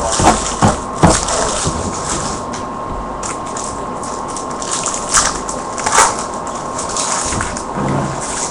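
Trading cards and their packaging being handled: crinkling and rustling, with sharp clicks near the start and again around five and six seconds in, over a faint steady whine.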